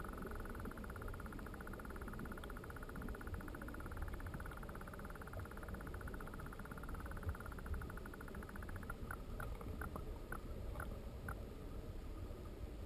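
Muffled, low rumbling of creek water heard through a submerged camera's housing, with a faint steady hum above it. About nine seconds in comes a short run of about seven light ticks.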